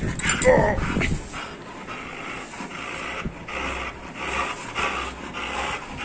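Doberman panting hard from exercise, about two breaths a second, after a brief pitched vocal sound near the start.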